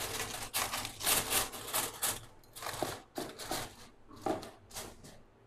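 Aluminium foil crinkling as hands press and crimp it around the rim of a kadhai, a quick run of crackles that thins out into a few separate crackles in the second half.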